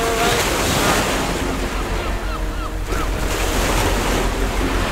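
Ocean surf breaking and washing on a sandy beach, with wind rumbling on the microphone.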